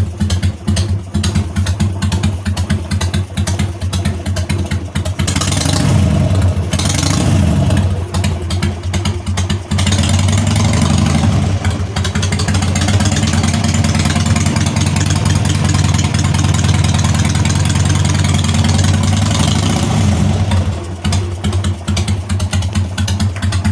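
Harley-Davidson Sportster's V-twin engine running and being revved with the throttle: pitch rises and falls a few times about five to eight seconds in, then it holds at higher revs for about ten seconds before dropping back. The throttle is worked through a newly fitted throttle cable, with no idle cable connected.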